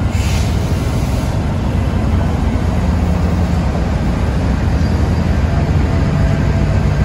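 Diesel-electric freight locomotives, a Union Pacific unit and a BNSF GE ES44C4, passing at close range with their engines running in a steady low rumble. A brief hiss comes right at the start.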